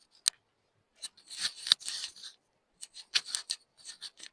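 Coffee grinder parts being scrubbed clean by hand: a sharp click just after the start, then a run of short, scratchy brushing strokes.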